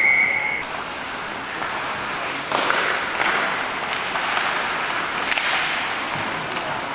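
A referee's whistle gives one short steady blast of about half a second at the start. After it comes the rink noise of play: skates scraping on the ice and sticks and puck clacking, growing louder about two and a half seconds in, with sharp knocks, one a little past five seconds.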